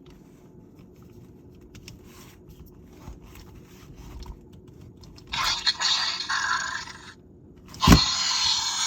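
Jurassic World Primal Pal Blue baby velociraptor toy playing its raspy screech sound effect through its small speaker, twice: once about five seconds in for about two seconds, and again near the end right after a sharp knock. Faint handling clicks come before it.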